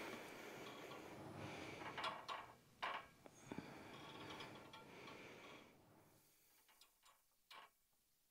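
Merrithew V2 Max Plus Pilates reformer's sprung carriage rolling on its rails as the legs in the straps lower and lift: a faint rumble with a few light clicks and knocks, fading after about six seconds.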